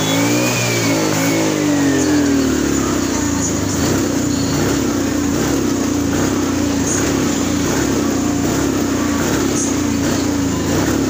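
Suzuki automatic scooter engine revved under throttle: the pitch climbs and falls back over the first couple of seconds, then it runs at steady raised revs with faint irregular stutters. This is the sputtering (brebet) that comes on when the throttle is opened, which the mechanic later suspects comes from a drained battery.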